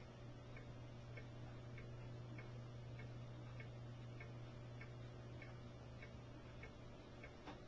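Faint, regular ticking, a little under two ticks a second, over a steady low hum.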